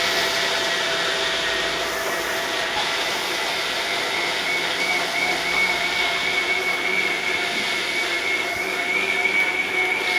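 A steady machine noise: a continuous whirring hiss with a high, even whine over it, like a motor or blower running.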